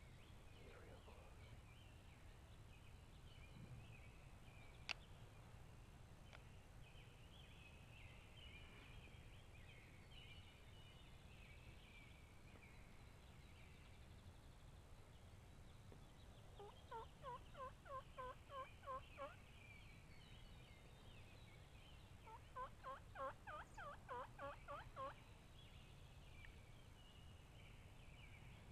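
Two series of turkey yelps, each a run of about eight to nine evenly spaced notes at about three a second lasting about three seconds, the first a little past halfway and the second a few seconds later. Faint songbirds chatter throughout, and a single sharp click sounds about five seconds in.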